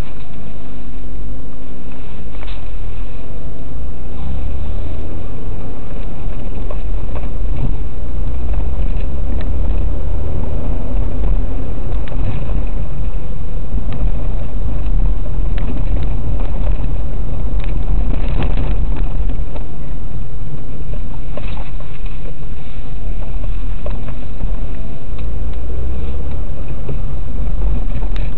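Car engine and road rumble heard from inside the cabin while driving: a loud, steady low rumble, with the engine's tone settling at different pitches from time to time and scattered knocks and rattles from the road surface.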